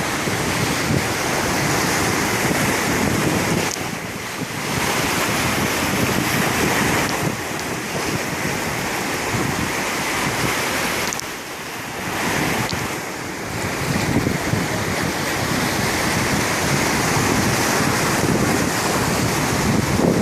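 Mediterranean Sea waves surging and washing, with wind buffeting the microphone as a low rumble. The wash eases briefly about four seconds in and again around twelve seconds before building back up.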